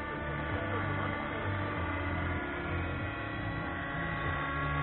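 Radio-controlled helicopter flying overhead: its motor and rotors give a steady, even hum made of several high tones held together.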